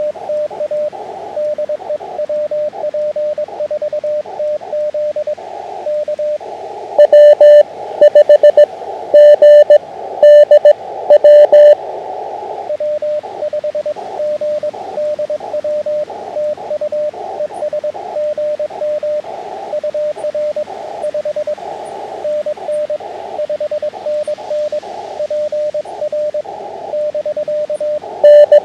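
Morse code (CW) heard on an amateur radio transceiver: a tone of about 600 Hz keyed in dots and dashes, with hiss from the receiver's narrow CW filter around it. For about five seconds roughly a quarter of the way in, and again at the very end, a much louder, harsher keyed tone at the same pitch sends a burst of code.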